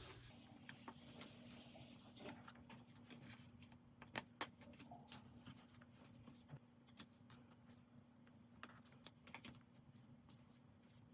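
Faint, scattered small clicks and taps of desk work on a diary: paper and stickers being handled and pressed down, a couple of sharper taps about four and nine seconds in, over a faint steady hum.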